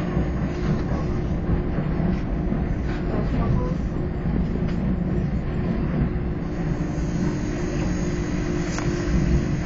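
Interior of a SkyTrain suspended monorail car in motion: a steady running rumble with a constant electric hum.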